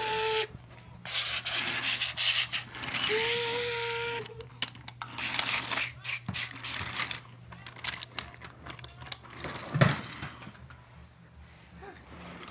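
A toy drawbridge for a train set being handled and worked, with scattered clicks and rubbing, and one louder knock near the end.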